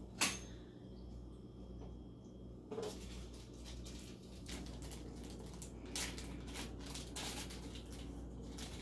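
Handling noises of flat-pack furniture assembly: a sharp click near the start, a short rustle about three seconds in, then scattered small clicks and rustles as small hardware and paper are handled, over a low steady room hum.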